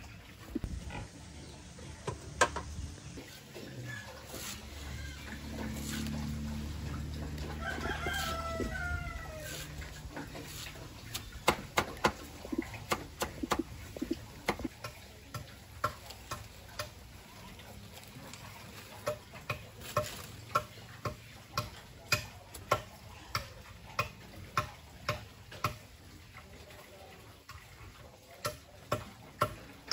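Chickens, with one short drawn-out crowing call about eight seconds in, over a low hum. After that comes a long run of sharp ticks, at first in clusters, then fairly regular at about one and a half a second.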